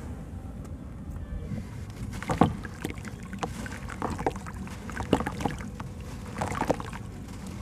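Soft red dirt crumbled by hand and dropped into a basin of water: gritty crackles and splashes, growing busier about two seconds in, over a steady low rumble.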